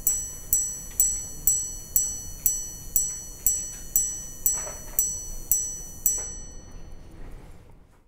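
Breguet minute repeater striking the minutes: a hammer hits the single high-pitched minute gong about twice a second, about a dozen even strikes, the last about six seconds in, then the ring fades away. These are the closing minute strikes of 12:59, the longest sequence a repeater chimes.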